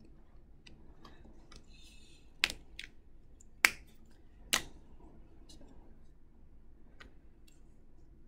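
Sharp clicks and light taps from a steel ruler and a Sharpie marker being handled and set down on a painted canvas: three loud clicks about a second apart near the middle, with fainter ticks before and after.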